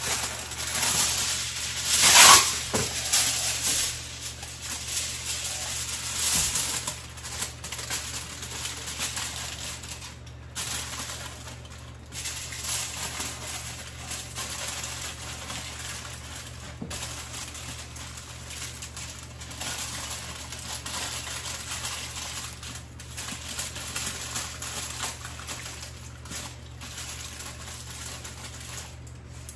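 Aluminium foil being handled and wrapped around food: a loud crackle about two seconds in, then steady crinkling and crumpling as the foil is pressed into shape.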